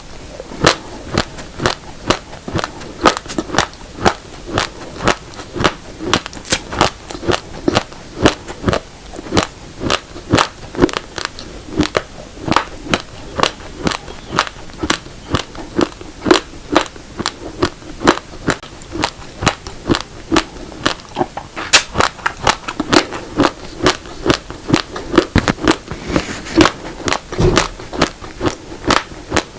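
Close-miked crunching of raw black and red rice grains being bitten and chewed: sharp cracks, several a second, as the hard dry grains break between the teeth.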